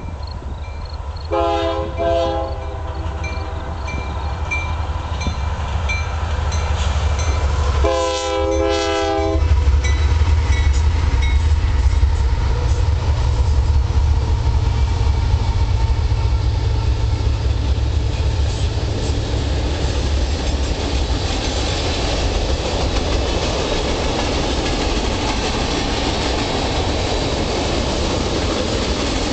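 Union Pacific freight train led by GE diesel locomotives: two air-horn blasts, one about a second in and one about eight seconds in, each just over a second long. Then the locomotives and the freight cars' wheels roll past on the rails with a steadily growing clatter and rumble, with wind buffeting the microphone.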